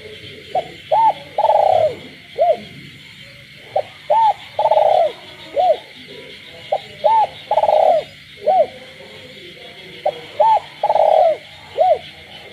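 A captive spotted dove cooing at night: four repeats of its phrase, about three seconds apart, each a short note, two arching notes, one long drawn note and a final arching note. A steady chorus of frogs calls behind it.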